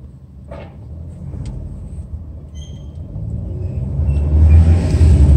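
Low rumble of a car's engine and road noise, heard from inside the cabin. It grows steadily louder as the car pulls ahead and picks up speed, and is loudest near the end.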